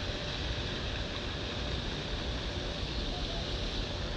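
Steady outdoor wind noise on the microphone with a constant low rumble and a faint, steady high hum above it.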